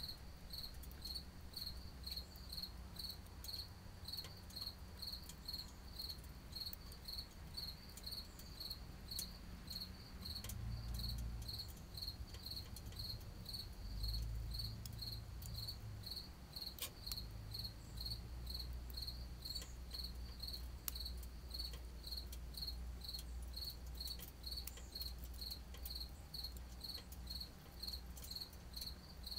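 A cricket chirping steadily, about two short chirps a second, over faint crackling clicks from twigs burning in a tin-can wood stove. A low rumble comes and goes underneath.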